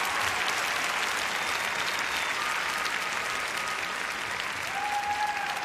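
Arena audience applauding steadily, easing off slightly near the end.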